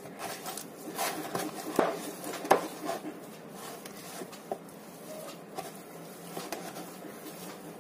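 Hands kneading crumbly, half-mixed pizza dough in a plastic bowl: soft irregular squishing and rubbing with scattered knocks of the bowl, two sharper knocks about two and two and a half seconds in.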